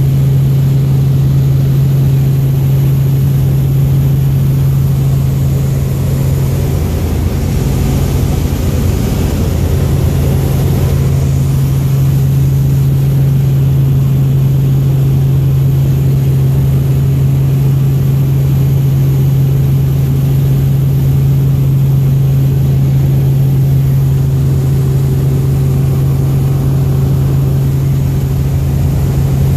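Helicopter in flight heard from inside its cabin: a loud, steady drone of rotor and engine with a strong low hum that wavers briefly about seven seconds in before settling again.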